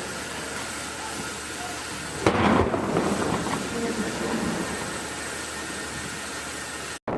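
A single saluting-gun shot from the warship HTMS Pinklao: a sharp boom about two seconds in, followed by a rolling rumble that dies away over a couple of seconds, over steady background noise.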